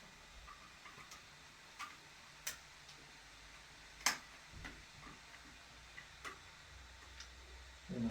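A few faint, sharp clicks and taps at irregular intervals, the loudest about four seconds in.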